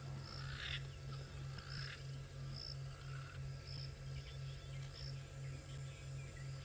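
Evening bush ambience of calling insects and frogs: a low trill pulsing steadily about four times a second, with short high chirps every second or so.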